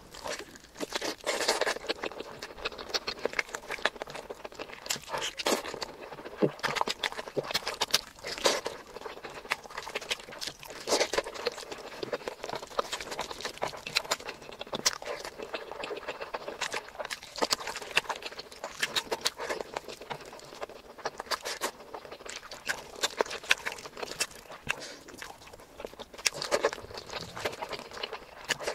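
Close-miked ASMR eating sounds: wet chewing and mouth clicks as mutton curry with rice is eaten by hand, with the food squishing under the fingers.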